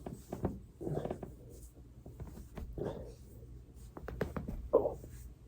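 A person working on a foam roller: a scattering of sharp clicks and pops, typical of joints cracking under the roller, with three short grunts in between. The last grunt, near the end, falls in pitch.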